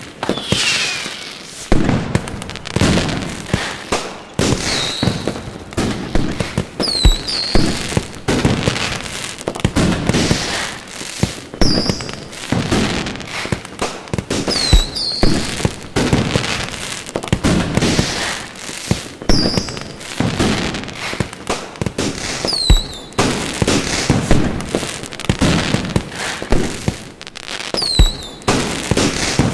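Fireworks display: a continuous barrage of bangs from bursting aerial shells, irregular and overlapping, with short high whistles gliding in pitch every couple of seconds.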